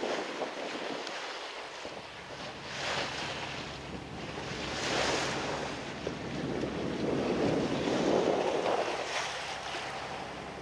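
Wind buffeting the microphone and sea water rushing along the hull of a motor boat under way in choppy water, swelling and fading every couple of seconds, over a faint steady engine hum.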